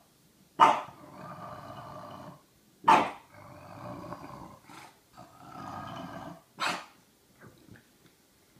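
French Bulldog growling at length in a steady rumble, broken by three sharp barks: about half a second in, about three seconds in, and near the end.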